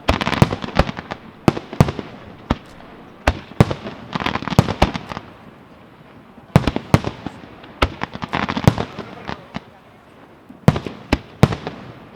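Fireworks display: sharp bangs from bursting shells in quick, irregular succession, with several dense bursts of crackling about a second long each.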